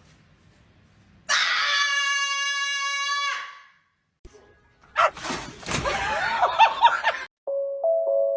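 A long, held, high-pitched scream of about two seconds, then after a short pause a two-second burst of shrieking and laughter-like cries. A short mallet-percussion jingle starts near the end.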